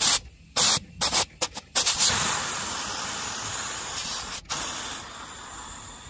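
R22 refrigerant gas spraying out of an air conditioner's angle valve at the outdoor unit in about six short spurts, as a thumb blocking the outlet is lifted and pressed back. It then settles into a steady hiss that slowly fades. The gas is purging dust and oil from the old lines, with oil spraying out.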